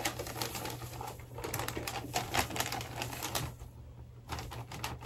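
Wrapping paper crinkling and crackling in quick irregular bursts as it is folded and pressed around a gift box, with a short lull about three and a half seconds in.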